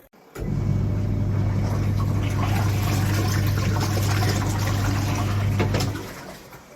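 TANGZON twin tub washing machine running: a steady motor hum with water churning in the tub. It starts abruptly and dies away about six seconds in.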